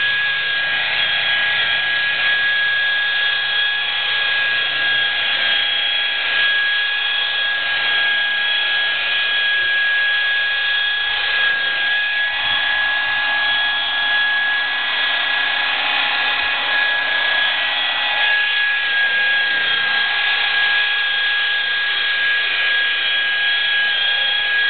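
Electric rotary polisher with a wool pad running steadily with a high, even whine while it compounds car paint. This is the cutting stage: rubbing compound on the pad takes out the sanding marks left from removing the oxidized clear coat and brings the paint back.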